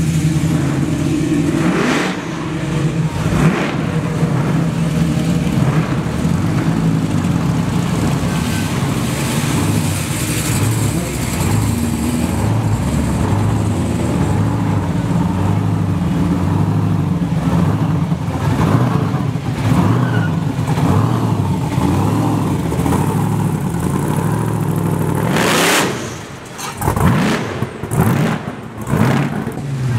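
Modified cars driving slowly past in a line, their engines rumbling low and shifting in pitch as each one goes by. Near the end one car revs sharply, then gives a few short throttle blips.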